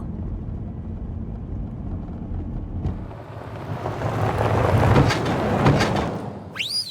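Cartoon car sound effects: a steady low engine hum, then a swelling rush of noise as the car drives along, ending with a short high whistle that rises and falls.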